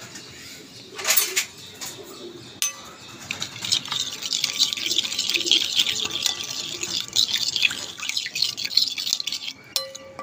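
A yogurt marinade being stirred in a glass bowl: a knock against the bowl about a second in, then several seconds of quick wet squelching and sloshing that fades near the end.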